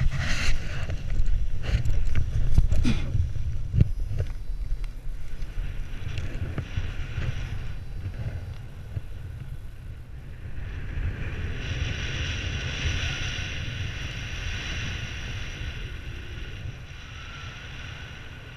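Wind rushing over the microphone of a paraglider pilot's camera during launch and flight: a heavy low rumble throughout, with knocks and rustling in the first four seconds of the launch run, and a higher hiss of airflow from about ten seconds in.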